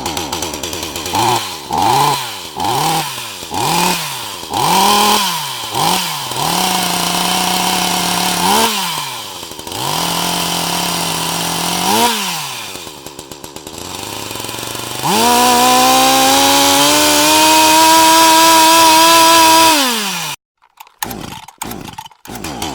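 Petrol chainsaw revved in quick blips about once a second, then held at a steady speed with a couple of single revs. It then runs at high revs for about five seconds before winding down, briefly cutting out, and sputtering back near the end.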